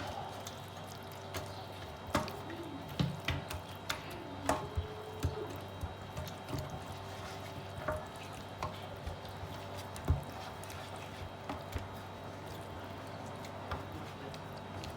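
Kitchen work sounds: scattered sharp clinks and taps of utensils and dishes, busiest in the first half, with some liquid sounds over a steady appliance hum.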